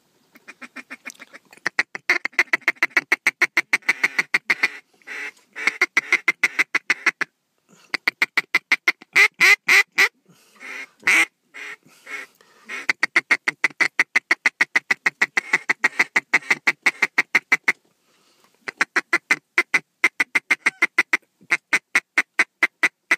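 Mallard duck call blown in long runs of rapid, evenly spaced quacks, about six a second, with short breaks between runs, calling circling mallards in to the decoys.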